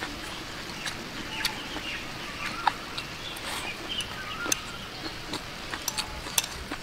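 Chopsticks clicking against a ceramic bowl while someone eats, in a string of sharp, irregular clicks. Birds call faintly in the background, with a short warbling call about four seconds in.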